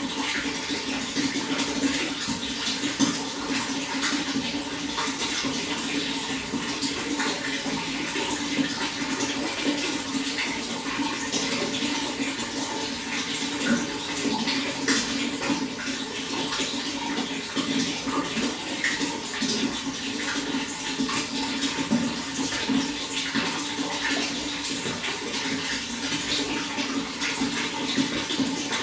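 Running water flowing steadily, with many small splashes and trickles throughout.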